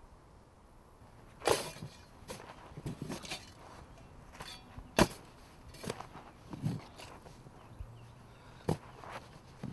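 Digging in dirt: an irregular string of sharp chops and scrapes into soil, about nine strikes, the loudest about five seconds in.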